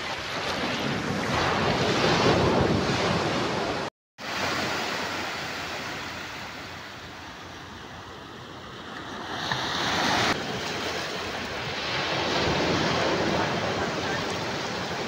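Sea surf: small waves breaking and washing up onto the shore, swelling and ebbing in slow surges. The sound drops out briefly about four seconds in and changes abruptly about ten seconds in.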